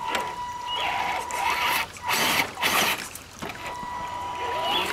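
Axial SCX10 II RC crawler's electric motor and geared drivetrain whirring in several short surges as it climbs a rock in a stream, over the sound of running water.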